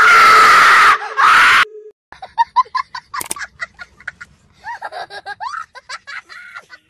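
A loud jump-scare scream, about a second and a half long with a short break in it, followed by a young child laughing hard in a quick string of short 'ha' sounds.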